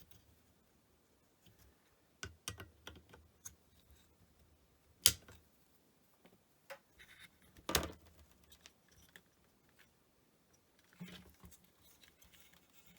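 Scattered small clicks and taps of hand tools and electronic parts being handled during power-supply component removal, with two sharper clicks about five and eight seconds in.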